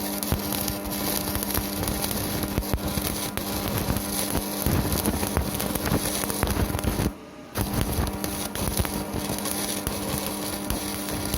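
Stick-welding arc crackling and spitting, with a steady hum from the Strad 160KS welding inverter running under load. The arc breaks for about half a second around seven seconds in, then strikes again.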